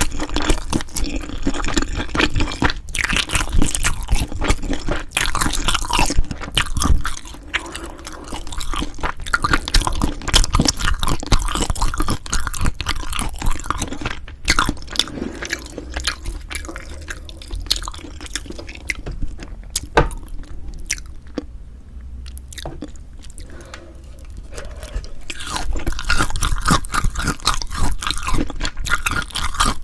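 Close-miked chewing of food, with many sharp, irregular crunchy and wet clicks from the mouth; it eases off for a few seconds about two-thirds through, then picks up again.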